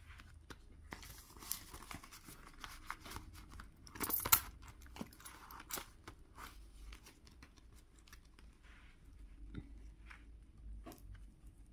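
Banknotes and a cash envelope rustling and crinkling as bills are stuffed into the envelope by hand, with scattered light clicks and taps. The loudest rustle comes about four seconds in.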